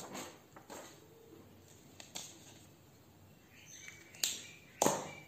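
A few short, faint clicks and taps spread through the pause, the two loudest near the end, with a faint brief high tone just before them.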